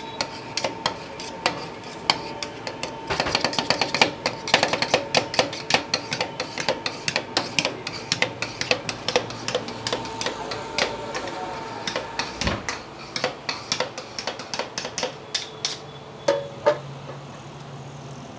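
Metal spatulas rapidly chopping and scraping on the steel cold plate of a rolled ice cream stall, mixing milk with dry fruits and mawa as it freezes. The clacks come several a second and thin out near the end.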